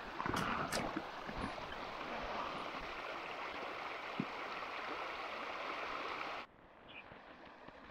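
Steady rush of a fast river over a riffle, with a few small knocks in the first second. The sound drops away suddenly about six and a half seconds in, leaving a much quieter background.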